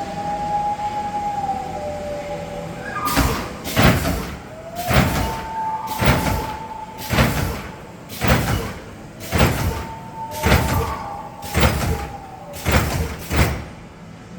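A wavering siren-like wail, then a steady train of about ten loud blasts of noise, roughly one a second, with the wail continuing faintly underneath. The blasts stop shortly before the end.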